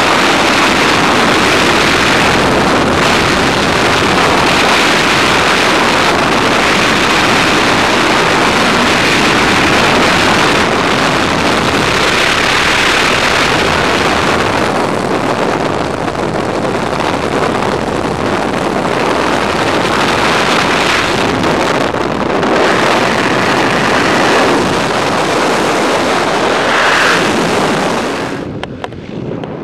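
Loud, steady rush of freefall wind buffeting a skydiver's camera microphone, dropping away sharply near the end.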